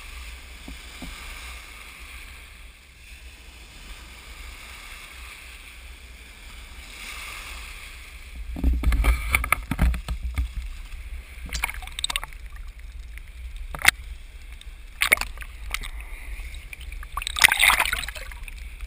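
Shallow surf lapping and sloshing around a camera at the waterline, with a steady low water rumble. From about halfway on, several louder splashes come as waves wash over it.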